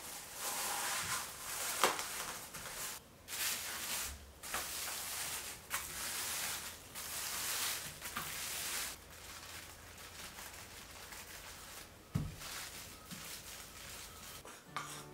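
Plastic wrap crinkling and rustling in bursts as cookie dough is handled and wrapped. This is followed by quieter rubbing as a wooden rolling pin rolls over the wrapped dough on a wooden board, with one dull knock near the end.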